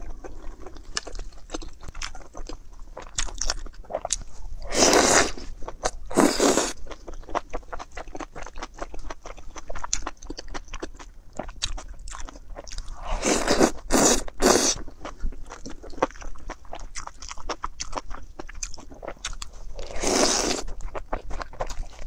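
Close-miked eating of a saucy spicy dish with chopsticks: steady wet chewing full of small clicks, broken by louder slurps about five and six seconds in, three in quick succession around fourteen seconds, and one more around twenty seconds.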